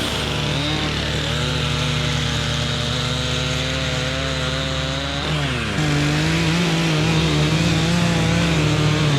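Stihl two-stroke chainsaw running at high revs, cutting through a jarrah log. About five seconds in, its pitch dips briefly and then settles again.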